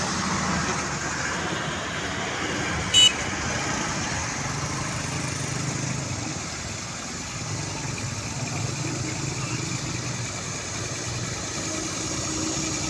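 Vehicle and machinery engines running steadily, with one short high-pitched beep about three seconds in.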